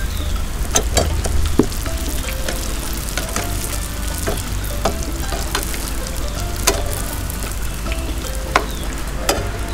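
Spring rolls deep-frying in hot oil in a wok, a steady sizzle, with a few sharp clicks of metal tongs against the pan.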